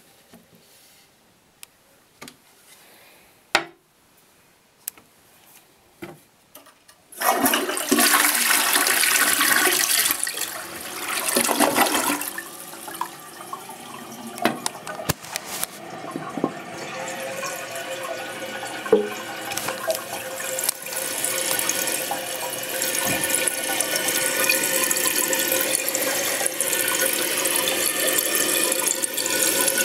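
Crane toilet flushing: a few faint clicks, then about seven seconds in the flush starts with a sudden loud rush of water that drains away over about five seconds. The tank then refills with a steady hiss that grows slowly louder.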